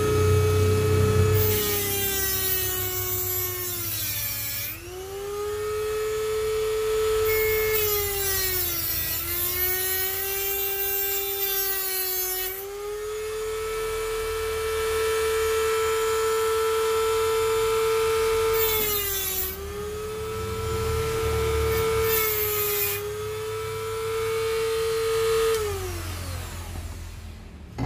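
Mini rotary tool with a small cutting disc running at high speed, as a small twist drill bit held in a jig is ground against the disc to sharpen it. Four times the bit meets the disc with a hissing grind and the motor's pitch sags under the load. Near the end the tool is switched off and its pitch falls as it winds down.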